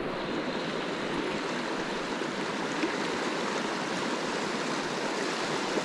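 Fast mountain river rushing steadily over rocks and small rapids.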